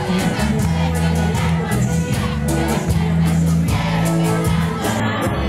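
Live cumbia band music with a steady percussion beat and a strong bass line.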